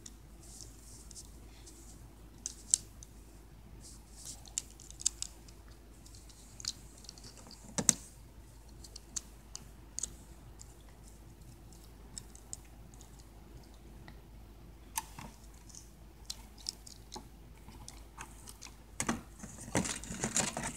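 Irregular small plastic clicks and taps from a Transformers Battleslash action figure's joints being twisted and folded by hand. There is a busier stretch of handling near the end.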